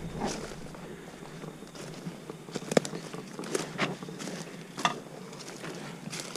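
Scattered rustles and sharp crackles of brush and blind fabric as someone works their way into a pop-up hunting ground blind, with a few louder snaps about three and five seconds in.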